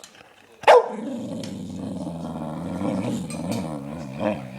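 Puppy gives one sharp bark about 0.7 seconds in, then a long drawn-out vocal grumble whose pitch wavers up and down.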